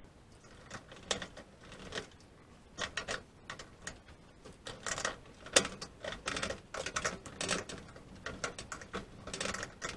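Irregular small clicks and rattles of plastic parts being handled: the microwave's interior light bulb being worked free of the plastic tabs that hold it in. The clicks come more often from about two and a half seconds in.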